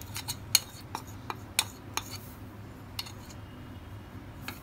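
Metal spoon clinking and scraping against a ceramic bowl as beaten egg is scraped out of it: a string of sharp, irregular clinks, most of them in the first two seconds.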